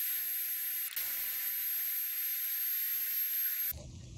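Heat gun blowing a steady hiss of hot air with a faint, very high whine, shrinking heat-shrink butt connectors on wiring. It cuts off suddenly near the end.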